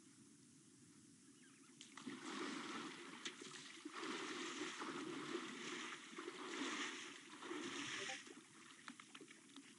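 African elephant wading through a shallow waterhole, its legs churning and splashing the water in a run of sloshing surges from about two seconds in until about eight seconds, over a faint steady hum of insects.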